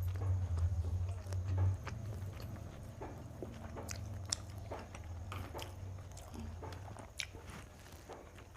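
Eating sounds of fried rice and chilli chicken being eaten by hand: chewing and biting, with scattered small clicks and scrapes. A low hum is strongest for the first couple of seconds, then fades.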